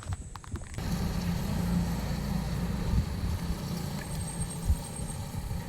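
A vehicle engine running steadily, coming in suddenly about a second in after a few light clicks.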